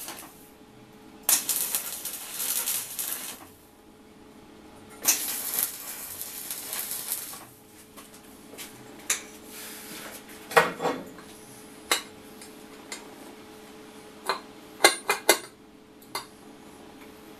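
Electric arc welding on steel: two bursts of crackling hiss, each about two seconds long, as welds are laid. After them come scattered sharp metal clinks and knocks, loudest around the middle.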